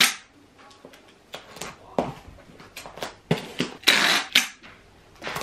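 Hand-held packing tape gun being handled to seal a cardboard box: a few sharp knocks and short rips of tape, the longest and loudest rip a little before the end.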